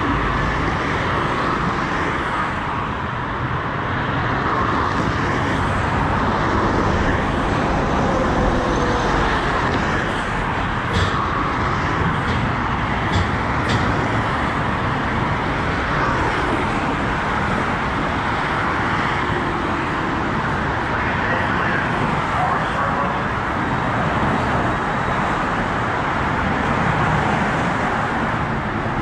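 Steady traffic noise from the multi-lane road beside the platform, with a light-rail train pulling into the station and stopping partway through.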